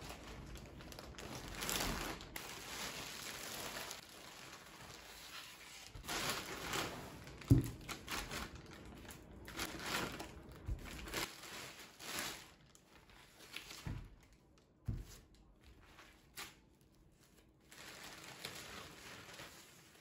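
Plastic shopping bag and plastic wrapping crinkling and rustling in irregular bursts as items are pulled out and unwrapped by hand, with a few short thumps, the loudest about seven and a half seconds in.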